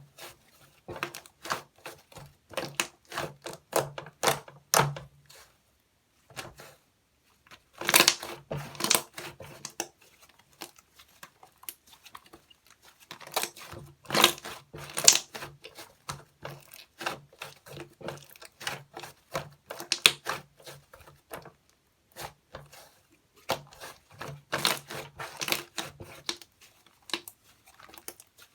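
Cloud slime being squished, stretched and pulled apart by hand, with rapid crackling, popping and soft tearing sounds in bouts of a few seconds, pausing briefly about six seconds in and again about twenty-two seconds in.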